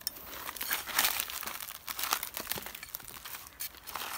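Large knife blade scraping and shaving along a rattan strip in quick, uneven strokes, about three a second, rasping off thin shavings. He is thinning the rattan for a Khmer ek kite.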